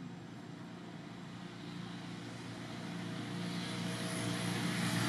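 Engine of a motor vehicle running and approaching, growing steadily louder.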